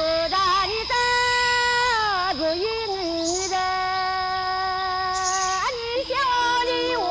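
Soundtrack of a high voice singing long held notes that waver and slide between pitches, with a steady high tone underneath.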